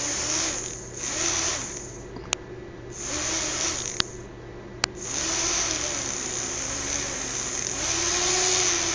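Small electric motors and propellers of a fischertechnik monorail carriage whirring, their pitch wavering up and down and their hiss dropping out and coming back a few times, with three sharp clicks in the middle.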